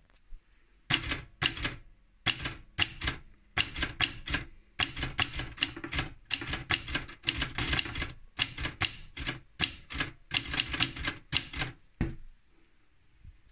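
Adler Junior E manual portable typewriter being typed on: the keys and typebars strike in quick runs, about two to three strikes a second, starting about a second in and stopping shortly before the end.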